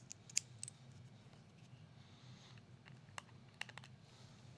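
Faint, scattered small clicks of a T-handle hex driver working on the screws of a plastic Viridian laser grip, over a low steady hum.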